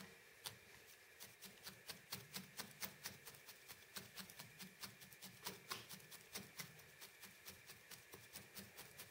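Needle-felting tool stabbing repeatedly through loose wool into the burlap-covered felting pad, a faint run of soft ticks at about five a second.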